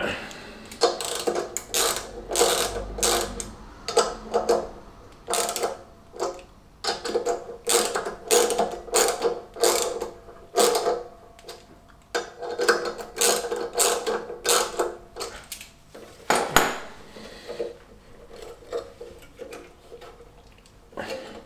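Hand ratchet clicking in repeated short strokes as the fastenings of a Fiat 500 engine's fan pulley are wound in. The strokes stop about two-thirds of the way through, leaving quieter handling of the pulley.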